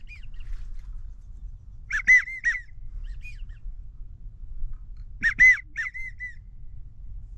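Wigeon whistles: two bursts of about three short, arching whistled notes each, roughly three seconds apart, with fainter single whistles between.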